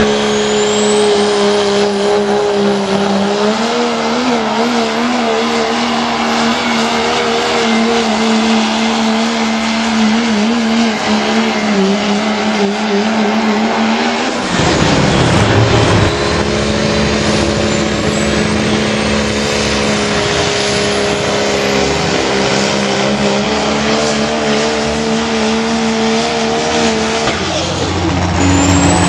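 Turbocharged diesel pickup trucks at full throttle pulling a sled, each engine held at a steady high pitch that wavers at times, with a thin high whistle climbing in pitch twice. The sound changes abruptly twice as one pull cuts to the next.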